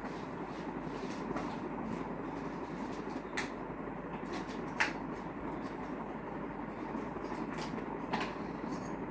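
A few sharp clicks and light rattles over a steady background noise, as Monopoly game pieces are handled and taken out of their packaging.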